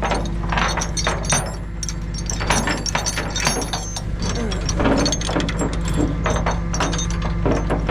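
Rapid metallic clicking, rattling and knocking of tow-truck tie-down gear being worked loose, over the steady hum of the tow truck's engine running.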